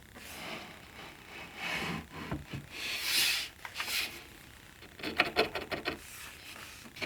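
Wood being handled and rubbed: scattered scrapes and light knocks, with a quick run of short scratchy strokes about five seconds in.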